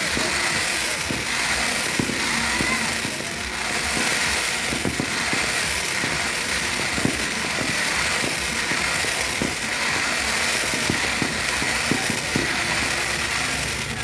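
Many fireworks and firecrackers going off at once: a dense, steady din of crackling with many small sharp pops.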